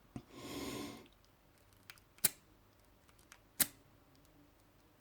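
Draper padlock being worked with lock picks: a brief rushing noise near the start, then two sharp metallic clicks about a second and a half apart, with a few fainter ticks between.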